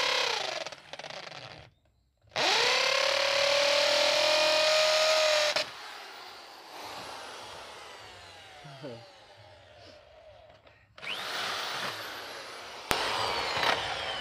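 Corded electric drill with a 3/4-inch wood bit boring through the wall of a green bamboo stalk: the motor winds down, starts again about two seconds in and runs steadily for about three seconds, then cuts off and spins down. It whirs briefly again near the end, followed by a knock.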